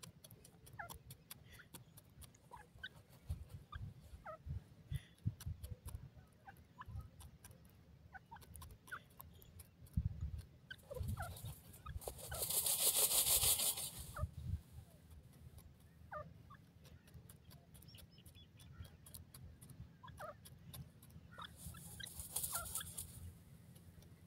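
Grey francolin dust-bathing in dry, loose soil: soft scratching, ticking and shuffling of sand and feathers. About halfway through, and again near the end, there is a louder burst of rustling as it shakes its fluffed feathers through the dust.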